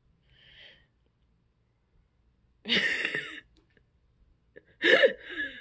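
A person's nonverbal snorting vocal sounds: a faint breath near the start, then two short, loud snorting bursts, one about two and a half seconds in and one near the end.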